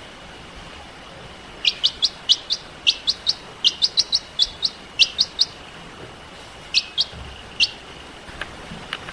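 Baby chicks peeping: a quick run of short, high, downward-sliding peeps starts about a second and a half in and thins out after about six seconds.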